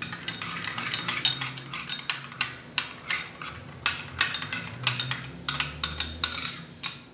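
Metal spoon stirring mayonnaise and chili sauce into a sauce in a small bowl, clinking and scraping against the bowl in quick, irregular strokes.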